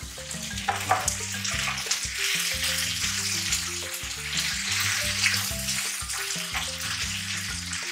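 Chicken and cashew nuts sizzling in coconut oil in a frying pan, a steady hiss, heard under background music.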